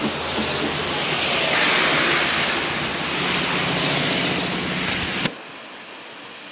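Road noise of oncoming traffic rushing past a moving vehicle over a low engine hum, swelling as vehicles pass, with a large tanker truck going by about four seconds in. About five seconds in it cuts off suddenly with a click to faint, quieter outdoor ambience.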